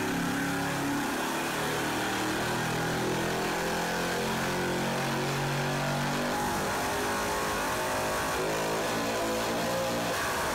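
Junkyard 4.8-litre LS V8 running on an engine dyno through open long-tube headers, a steady engine note with no accessories fitted.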